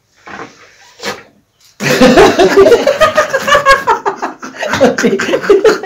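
A man's voice, loud and continuous from about two seconds in, after a couple of short soft sounds.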